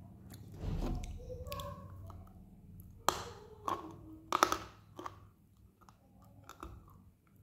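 Hard, chalky clay pieces being bitten and chewed close to the microphone: four sharp crunches about three to five seconds in, between softer mouth sounds.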